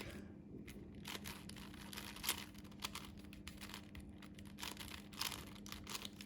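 Plastic 5x5 Rubik's cube being turned by hand: a fast, uneven run of faint clicks and rattles as its layers are twisted through an algorithm.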